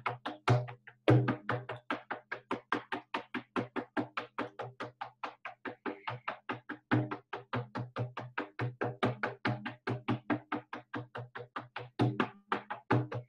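Hand-held frame drum beaten with a beater in a fast, even shamanic journey rhythm, pausing briefly about a second in.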